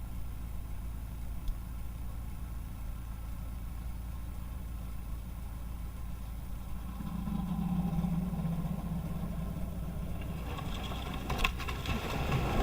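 Vehicle engine idling steadily, running a little harder for a few seconds about seven seconds in. Near the end come a sharp knock and some clattering.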